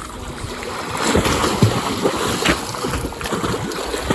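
Water splashing and sloshing in a swimming pool as a person swims, in an irregular run of small splashes.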